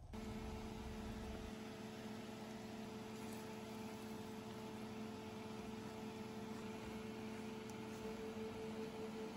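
Steady appliance hum, two held tones over a soft even hiss.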